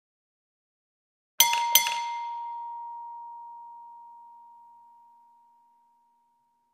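Logo sting sound effect: two quick clinks, the second about a third of a second after the first, then one clear ringing tone that fades away over about four seconds.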